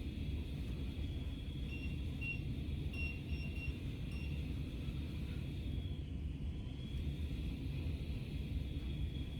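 Short electronic beeps from a digital multimeter, about six in an irregular run in the first half, like a continuity beeper as the probes touch. A steady low rumble runs underneath.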